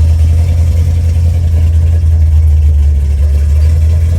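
Vehicle engine running with a loud, steady low rumble.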